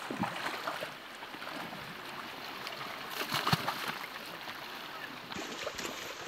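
Shallow river water running, with splashing from people wading through it; the loudest splash comes about three and a half seconds in.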